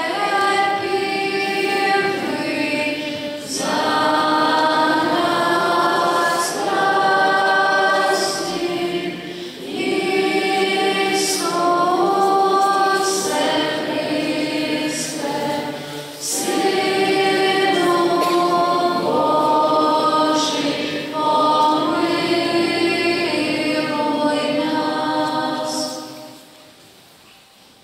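A choir singing unaccompanied in slow, long-held phrases with short breaks between them, fading out near the end.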